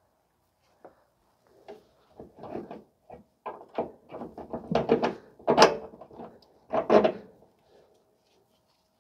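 Irregular metallic clinks and clunks of bolts, nuts and tools being handled while a rear shock absorber's mounting hardware is fitted, with the loudest knocks about five and a half and seven seconds in.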